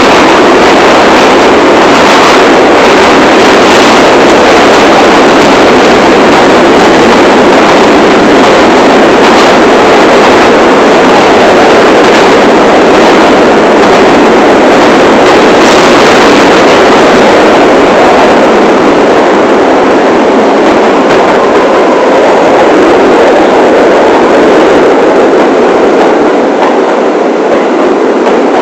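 New York City Subway 1 train running at speed, heard from inside the front car: a loud, steady rush and rumble of wheels on rail with a stream of faint clicks from the track. It grows a little quieter near the end.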